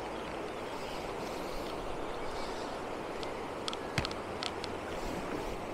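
A river running high with snowmelt rushes steadily. A few light clicks come about four seconds in.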